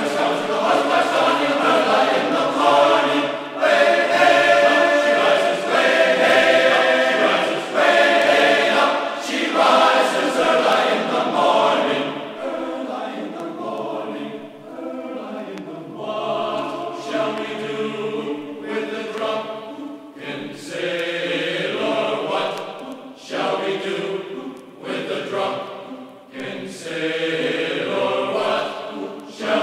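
A group of voices singing a sea shanty together in chorus.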